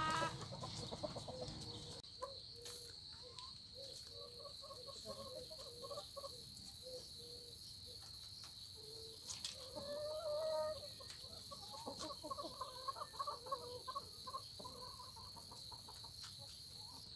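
Domestic hens clucking in a coop, short soft calls one after another, with a louder drawn-out call about ten seconds in. A steady high whine sounds behind them throughout.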